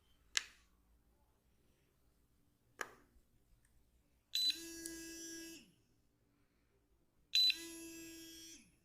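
Two sharp clicks, then two electronic-sounding buzzes about a second and a quarter long, each starting with a louder burst and then holding a steady pitch.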